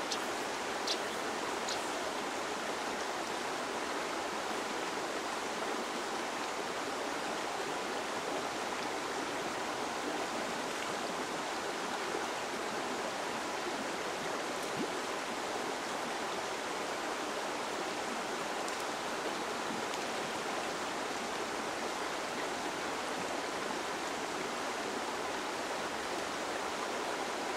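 Small rocky river running over stones: a steady, even rush of flowing water.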